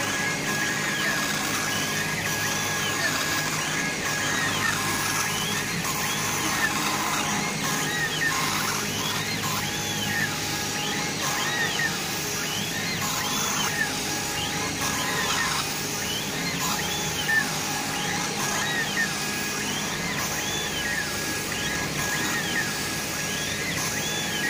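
CO2 laser engraver's head scanning back and forth while raster-engraving wood: the stepper motors whine in short rising-and-falling sweeps, over and over, as the head speeds up and slows down at each end of a pass. Underneath is a steady hiss and a thin steady tone.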